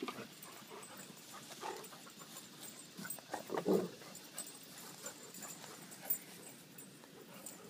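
Two dogs, a yellow Labrador and a black Lab mix, playing, with a short dog vocalization about three and a half seconds in, the loudest sound.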